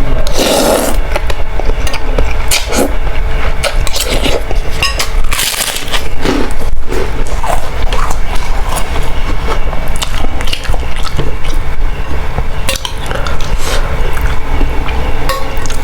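Eating from a bowl of boiled instant noodles: utensils clinking and scraping against the bowl in irregular clicks, with bites and chewing.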